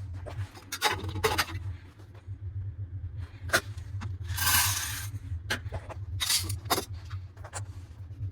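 Dry soybeans being handled for a moisture test, rattling, clinking and scraping in short bursts, with a longer rush of pouring beans about halfway through. A low steady hum runs underneath.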